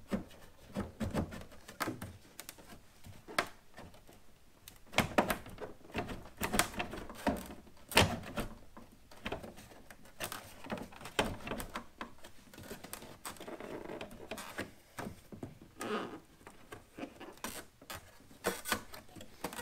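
Plastic tail light housing of a 2007 Saturn Sky being rocked back and forth and tugged against its mounting posts: irregular clicks, knocks and rubbing of plastic as the stuck lower post resists coming out.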